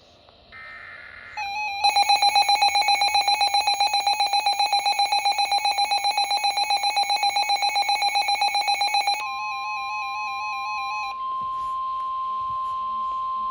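Emergency Alert System activation on a NOAA Weather Radio receiver. A brief SAME data burst comes first. The receiver's own loud alarm then beeps in rapid pulses for about eight seconds, and gives way to the steady single-pitch 1050 Hz warning tone that announces a severe thunderstorm warning.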